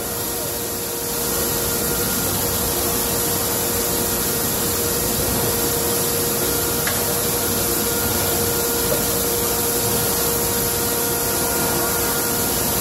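Cheese-plant processing machinery running: a steady, even noise with a constant hum. It grows a little louder about a second in.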